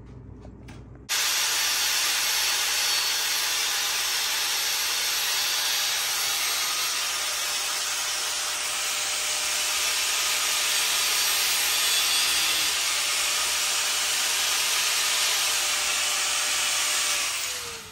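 Steady, loud hissing noise with no clear pitch. It starts abruptly about a second in and fades out near the end.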